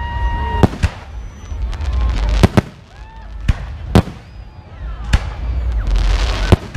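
Aerial fireworks shells bursting: about seven sharp bangs over a low rumble, with a rushing hiss shortly before the end.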